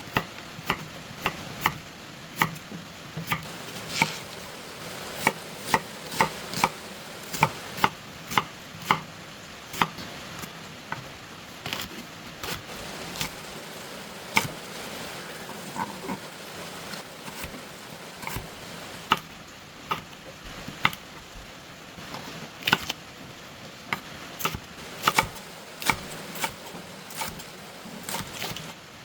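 Kitchen knife chopping on a cutting board: sharp, separate strikes at an uneven pace, roughly one or two a second, over a steady background hiss.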